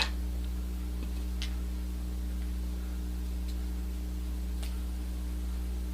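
A steady low electrical hum, with three or four faint, widely spaced light clicks of small wheel-and-axle parts being handled.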